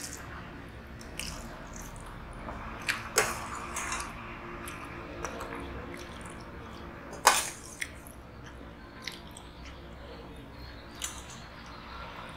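Close-up eating sounds: chewing and the soft, wet squish of rice and curry being mixed by hand. Scattered short clicks from steel utensils, the loudest a sharp clink about seven seconds in.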